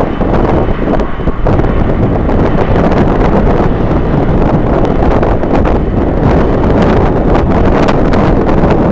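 Strong wind blowing across the camera microphone, a loud, continuous rush of wind noise with gusty buffeting.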